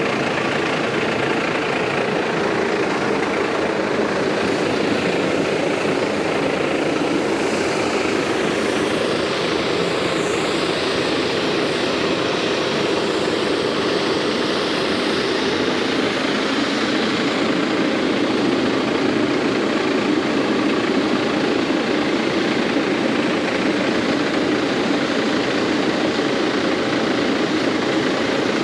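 Tractor engine running steadily, a constant mechanical drone with the new seed drill hitched and working.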